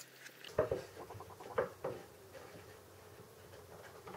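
Background music ending about half a second in, then hand work on a pine dovetail joint: a few sharp wooden knocks and small clicks and scrapes, as a chisel pares the sockets and the wood is handled.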